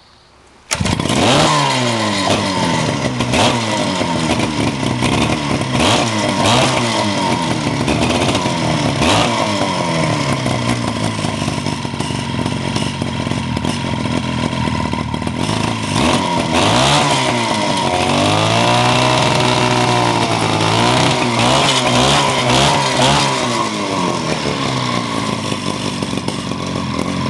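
Mercury-powered Disston DA-211 two-stroke chainsaw with a five-foot bar firing up less than a second in, then running loud, its engine speed repeatedly rising and falling.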